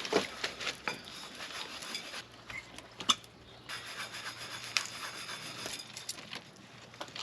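Irregular scraping and light clinking of utensils and dishes, with two sharper clinks about three and five seconds in.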